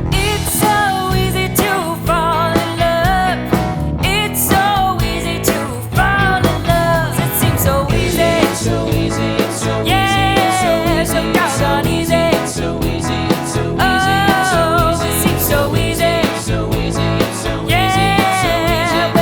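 A band playing a song: drums, bass and guitar under a wavering lead melody line.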